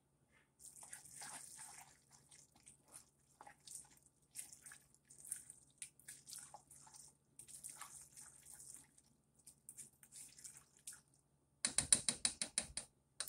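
A spoon stirring thick macaroni and cheese in a metal saucepan: irregular wet, sticky scraping strokes. Near the end comes a quick run of sharp knocks, the loudest sound, as the spoon beats against the pot.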